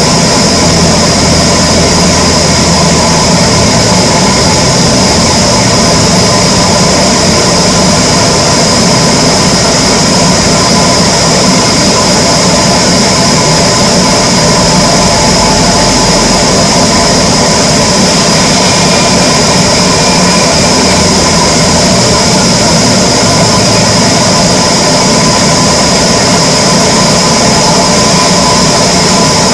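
Power saw running steadily and loud while cutting teak wood, a constant high tone over the machine noise.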